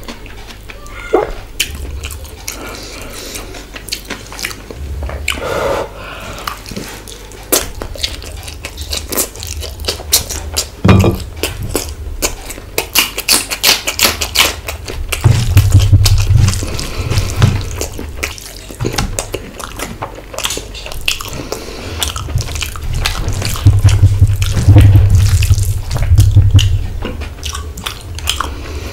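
Close-miked eating by hand: fingers squishing rice into wet curry, with lip-smacking, wet mouth clicks and chewing. Heavier spells of chewing come about halfway through and again near the end.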